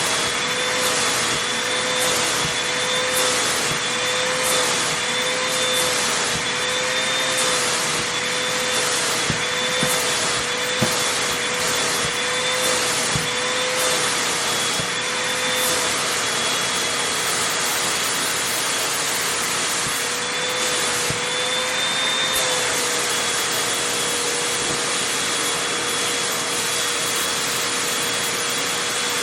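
Vacuum cleaner running with a steady whine, its nozzle worked back and forth over fabric in strokes that swell the hiss a little more than once a second through the first half, then held steadier.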